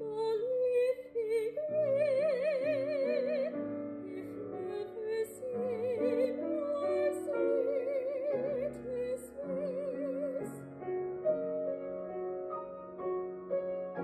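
A young woman singing in classical operatic style through a face mask, with a wide vibrato on her held notes, accompanied by a piano playing sustained chords.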